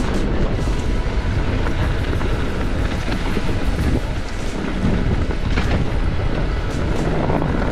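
Mountain bike descending a rough trail: steady wind rush on the camera microphone over the rumble of tyres on rock and gravel, with scattered clicks and knocks from the bike rattling.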